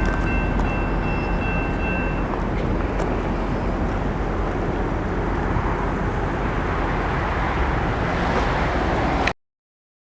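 Loaded coal train cars rolling past on the rails, a steady rumble with a few sharp clicks; a thin high wheel squeal stops about two seconds in. The sound cuts off suddenly near the end.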